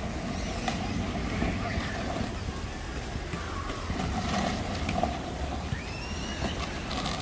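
Outdoor background: a steady low rumble of wind on the microphone, with faint voices and a few short high chirps or squeals near the end.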